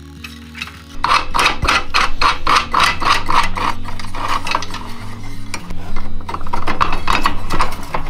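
Metal-on-metal scraping and clicking, repeated quickly, as a bolt is fitted by hand through an aluminium solar-panel mount bracket and rail, starting about a second in. Background music plays underneath.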